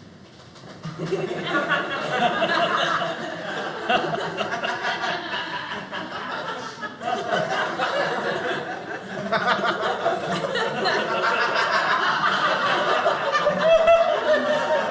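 Studio audience laughing, the laughter swelling about a second in, easing a little midway and building again.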